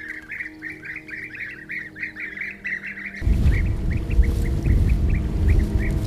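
A colony of European bee-eaters calling: a quick, continuous run of short rolling chirps, several a second. A low rumble joins about three seconds in.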